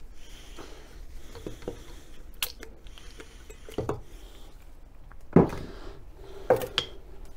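Pistons and connecting rods being handled on a workbench: a few sharp metal clacks and knocks, the loudest about five and a half seconds in and again about a second later.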